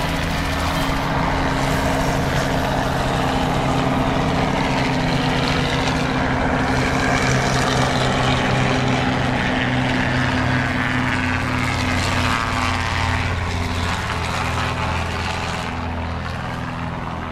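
Helicopter flying close by: a steady rotor and engine drone that eases slightly near the end.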